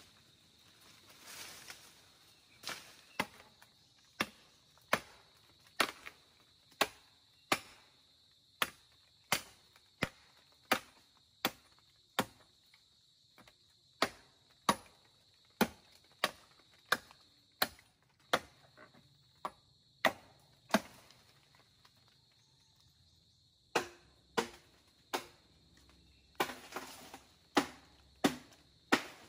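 Bamboo being chopped with a blade: sharp strokes about one a second, with a pause of about two seconds roughly two-thirds of the way through. A faint steady insect drone runs underneath.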